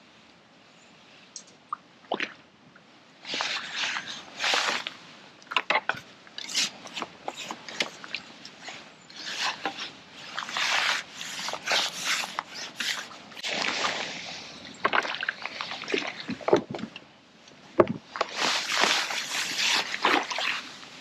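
A hooked fish splashing at the water's surface as it is played in towards the landing net, in irregular bursts of sloshing that start about three seconds in and thicken near the end.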